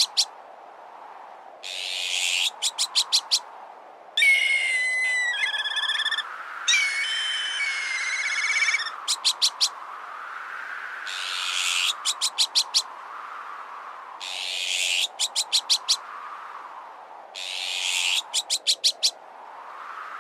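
A layered bird-repellent sound mix. Black kite calls, a high whistle that breaks into a wavering trill, sound between about four and nine seconds in. Gusting wind rises and falls underneath, and about every three seconds a short harsh hissing burst ends in a quick run of four or five sharp clicks.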